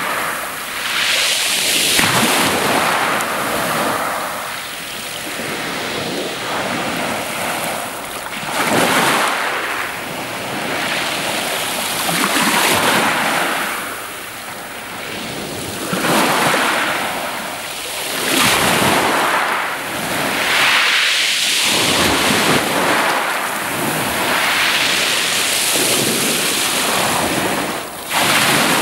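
Small waves washing up a steep pebble beach and draining back through the pebbles, the hiss swelling and easing every few seconds.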